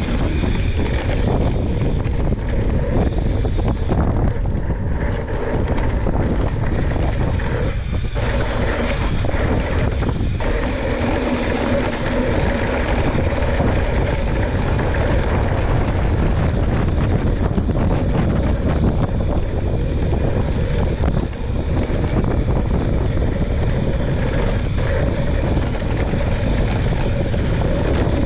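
Wind rushing over the camera microphone, mixed with the tyres of a mountain bike rolling fast down a dry dirt trail: a steady, loud rush that dips briefly about two-thirds of the way in.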